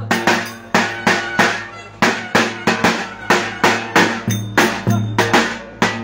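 Davul, the large Turkish double-headed bass drum, beaten in a steady dance rhythm of about three strokes a second, each deep stroke ringing on briefly before the next.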